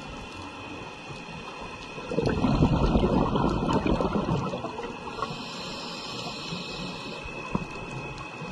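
Scuba diver's regulator breathing underwater: a loud burst of exhaled bubbles about two seconds in, lasting some two and a half seconds, then a softer high hiss as the next breath is drawn.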